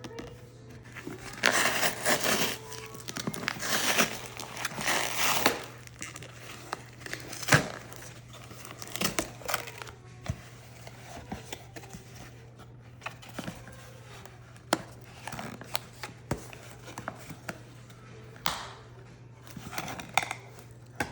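Packaging being unwrapped: crinkling and tearing of wrap, dense for a few seconds near the start, then scattered clicks, taps and short rustles. A steady low hum runs underneath.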